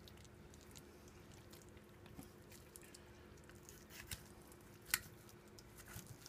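Faint wet squishing and scattered light clicks of a dull kitchen knife cutting raw chicken breast meat away from the rib bones on a cutting board, with one sharper click about five seconds in.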